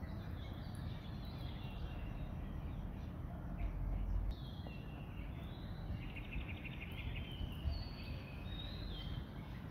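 High bird chirps come and go over a steady low rumble of ambient noise, with a short rapid trill about six seconds in.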